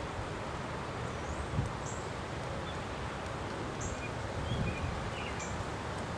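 Outdoor ambience of wind buffeting the microphone and leaves rustling, with short, faint, high-pitched bird chirps every couple of seconds.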